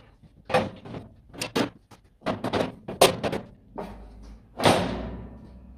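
Metal grill grates being set down on a gas grill over its bed of lava stones: a string of metal clanks and rattles. The last clank, about five seconds in, rings on briefly.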